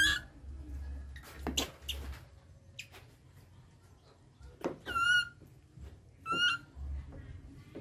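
Baby macaque giving three short, high-pitched squealing calls, each bending up then held briefly. A few light knocks on the wooden table come between the calls.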